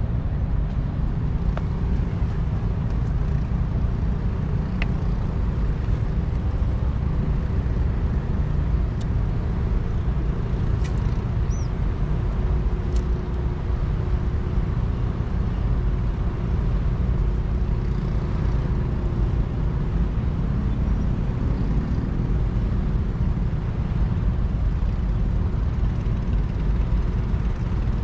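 Steady low rumble of wind buffeting the microphone on an open jetty, with a faint steady hum underneath.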